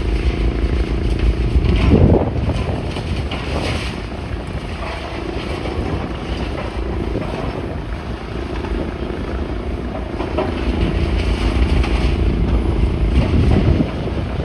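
An engine running steadily over a heavy low rumble, with a louder surge about two seconds in.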